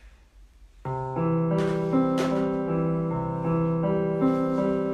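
Piano music for a ballet barre exercise begins about a second in after a brief quiet, with held chords and a slow, even pulse.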